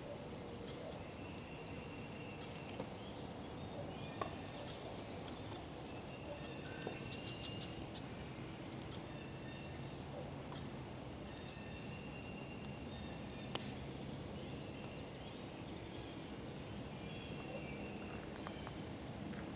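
Birds singing short, repeated whistled notes over a steady low hum, with a few sharp pops from the burning wood of a campfire.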